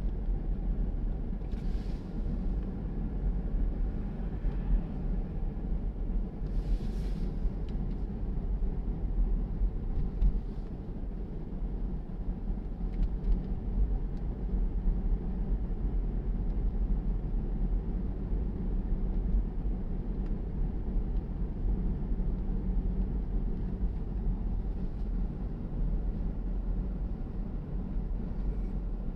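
Steady low road and engine rumble heard inside a moving car's cabin, with a brief hissing swell about two seconds in and another about seven seconds in.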